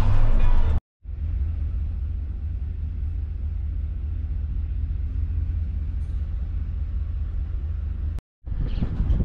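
Low, steady engine rumble inside a U-Haul moving truck's cab while it waits in a slow line of traffic. It cuts out briefly near the start and again near the end; around the cuts the cab noise is louder, as at highway speed.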